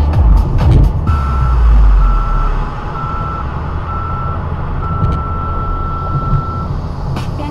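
A series of electronic beeps at one pitch: four short beeps about a second apart, then one long tone lasting nearly two seconds, over a steady low rumble.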